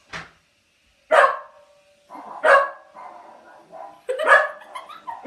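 Dog barking: several sharp barks spaced about a second or more apart, with softer, lower sounds between the later ones.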